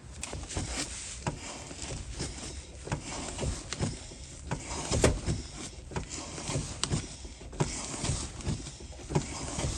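Ford Mustang II brake pedal being pumped over and over, its pedal and linkage giving short knocks and clicks, about one or two a second. The brakes are being bled, pushing air and fluid out through an open rear bleeder screw.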